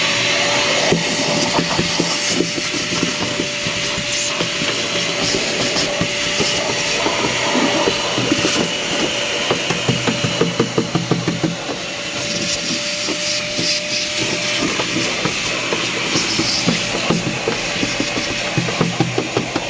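Electrolux vacuum cleaner running and vacuuming: a steady rushing hiss with a faint steady whine that stops about three quarters of the way through, and stretches of rapid rattling clicks around the middle and near the end.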